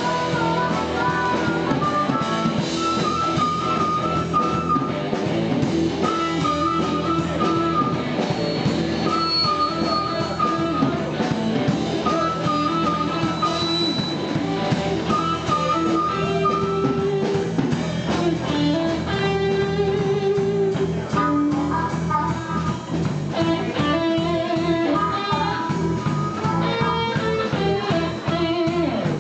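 Blues band playing an instrumental passage of a boogie: guitar playing repeated short lead phrases over bass and drums.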